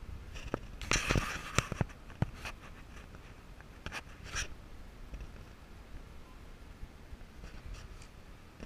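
Scratching, rubbing and clicking handling noise from a camera being moved about inside a car cabin, loudest about a second in, with more short scrapes around four seconds and near the end, over the car's faint low rumble.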